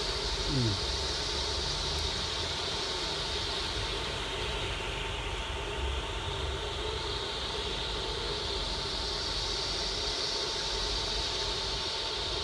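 Steady rushing of tropical-storm wind, with a faint steady high whine and a short falling tone about half a second in.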